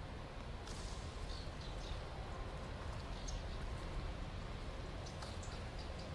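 Outdoor ambience: a steady low rumble with a few faint, brief bird chirps scattered through it.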